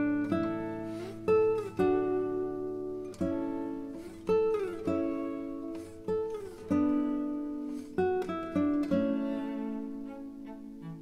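Instrumental background music: plucked-string notes, each struck sharply and fading away, with a few notes that slide down in pitch.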